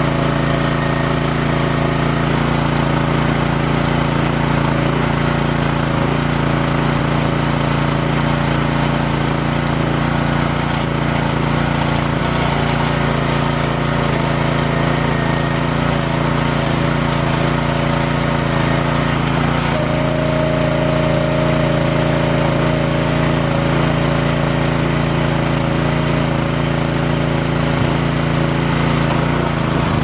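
The small gasoline engine of a log splitter runs steadily at working speed. About two-thirds of the way through, a higher steady whine joins it.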